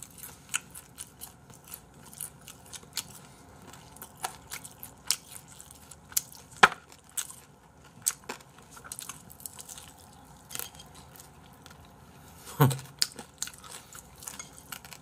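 Fried chicken being bitten and chewed close to the microphone: scattered crisp crunches and mouth sounds, with a louder crunch about six and a half seconds in and a brief louder sound near the end.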